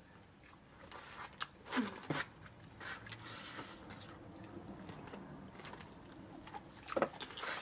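Close-up chewing and crunching of tortilla nacho chips, with scattered crackles and small clicks; two short sliding sounds stand out, about two seconds in and more loudly near the end.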